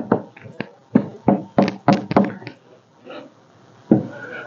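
About a dozen sharp, irregular knocks and taps, mostly in the first two and a half seconds, with a couple more near the end, as a wooden wall frame and its wire are handled and worked into square.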